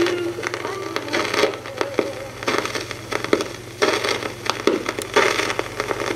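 A stylus riding the run-out groove of a 45 rpm vinyl single once the song has finished. There is surface crackle and hiss, with a swishing click about every 1.3 s (once per turn of the record), over a low steady hum. The last note of the song dies away just as it starts.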